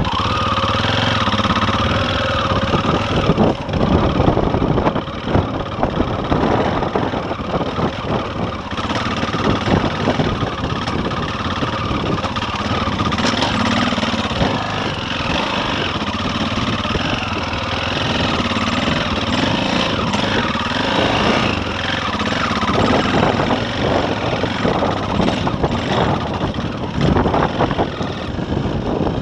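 KTM enduro motorcycle's single-cylinder four-stroke engine running steadily while the bike is ridden over a rocky track, with frequent knocks and rattles from the stones and chassis.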